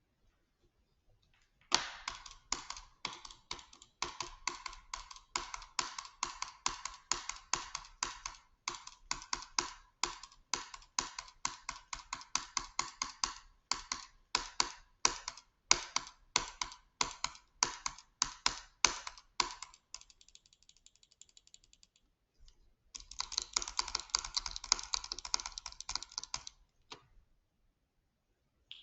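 A long run of sharp clicks, several a second, with the irregular rhythm of typing. After a brief faint rattle and a short pause, a denser, quicker flurry of clicks follows for about three seconds, then stops.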